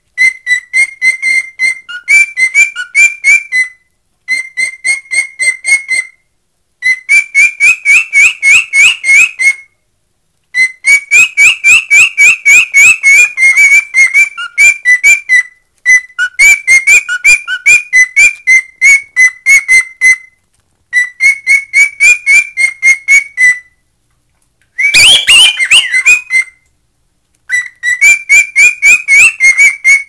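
Cockatiel singing a whistled song: rapid repeated notes about five a second, in phrases a few seconds long with short pauses between. Near the end comes one louder, rougher burst.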